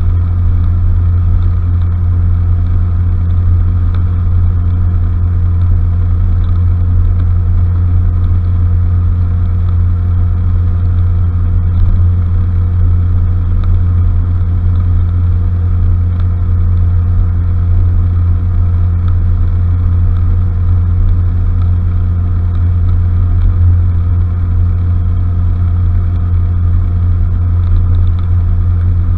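Honda Fusion scooter's single-cylinder four-stroke engine running at a steady cruising speed: a constant, even drone that holds the same pitch throughout.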